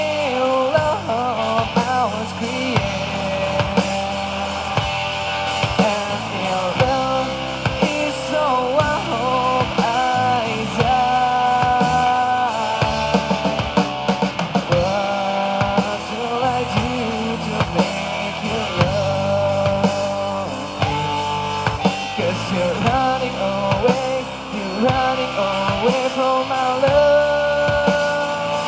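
Rock band playing live: drum kit and guitars under a melodic lead line of bent and long-held notes.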